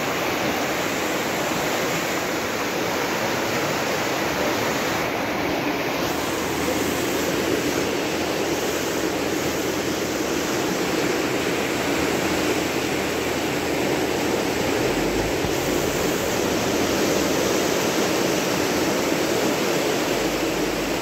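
Muddy flash-flood water rushing across a wide riverbed, a steady, unbroken rush of water.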